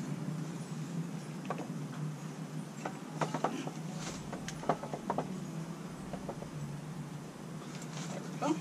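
Scattered light clicks and knocks of plastic PVC pipe fittings being handled and fitted by hand, over a steady low hum.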